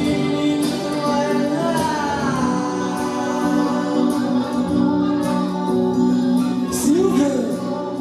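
A man singing a song into a microphone, accompanied by his own strummed acoustic-electric guitar.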